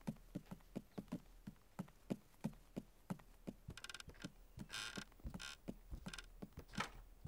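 Faint, light tiptoeing footsteps on wooden stairs and floor, soft taps about three a second, with a few short bright chiming notes from about halfway through.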